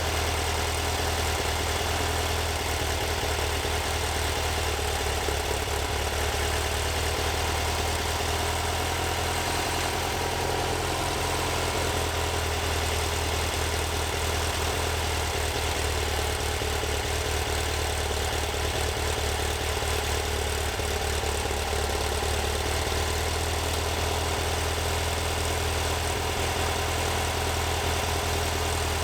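Vehicle engine running steadily, a constant low drone that holds the same level with no revving.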